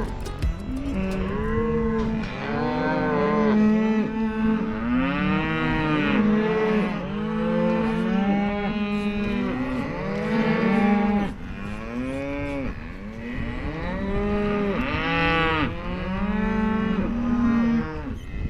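Cattle mooing and bawling, many overlapping calls one after another, from calves sorted off from the cows and the herd calling back.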